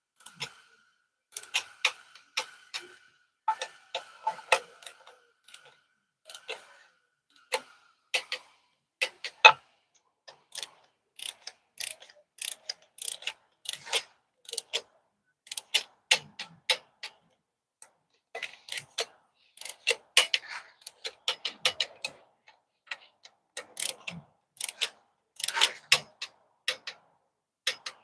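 Hand torque wrench ratcheting in quick runs of clicks with short pauses between, as the module bolts are run down to 25 pounds torque in the DT12 transmission's aluminium housing.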